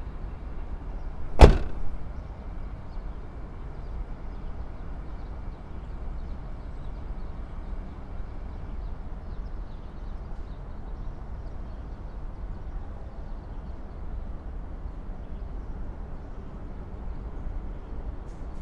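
A car door slams shut once about a second and a half in, with a smaller knock just after. Then a steady low outdoor rumble.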